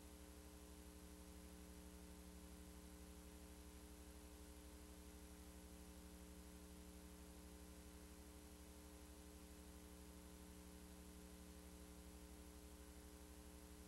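Near silence: a faint, steady electrical hum under hiss, with no other sound.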